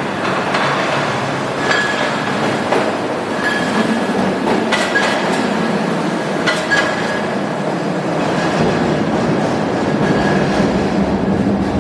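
Buffalo Metro Rail light-rail train running on its track, a steady rumble of wheels on rail with a few short high wheel squeals and clicks from the rail joints.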